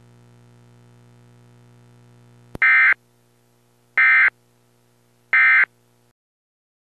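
Emergency Alert System end-of-message code: three short, loud bursts of digital data tones about 1.4 seconds apart, closing the tornado warning broadcast. They sound over a faint, steady low hum that cuts off shortly after the last burst.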